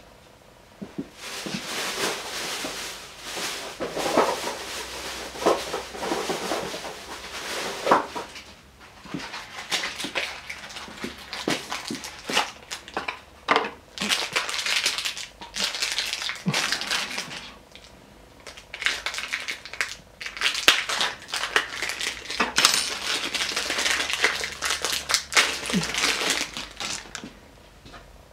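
A ball bearing from a lathe spindle being handled and worked by hand: irregular rough scraping and rattling with many sharp clicks, in three long spells with short pauses between them.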